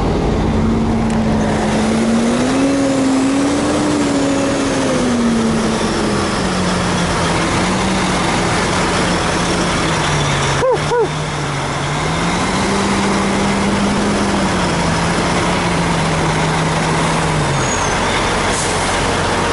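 Highway truck noise heard from a moving semi-truck's cab: steady road and wind noise under a diesel engine drone that slowly rises and falls in pitch as engine speed changes. There is a brief break in the sound about eleven seconds in.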